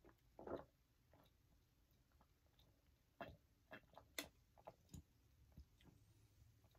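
Faint swallowing and small mouth clicks of a person drinking soda from a plastic bottle: one soft gulp about half a second in, then a run of quiet clicks and gulps between about three and five seconds in.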